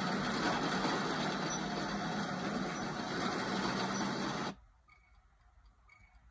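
Action-film soundtrack through a tablet speaker: a loud, even rushing noise over a steady low hum, cut off sharply about four and a half seconds in. Faint high ticks about once a second follow.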